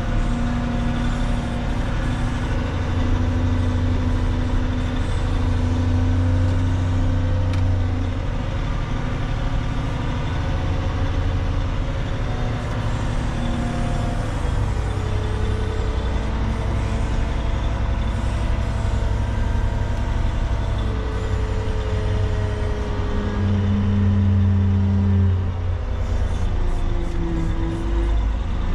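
Cat 730 articulated dump truck's diesel engine running, heard from inside the cab as the truck drives slowly, a steady low drone whose pitch drifts gently up and down. It swells louder a few seconds in and again about four-fifths of the way through.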